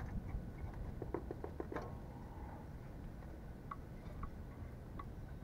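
Scattered light clicks and taps of metal parts being handled as a motorcycle headlight is taken apart, a quick cluster of them about a second in and a few single ticks later, over a low rumble of wind on the microphone.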